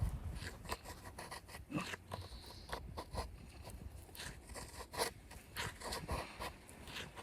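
Irregular scrapes, rustles and clicks of things being handled.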